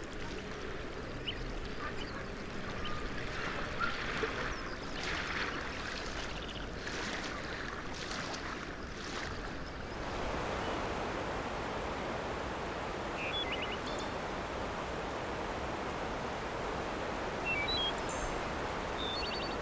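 River water rushing, with splashing in the first half and a steadier, fuller rush of current in the second half. A few faint short chirps, likely birds, come through near the end.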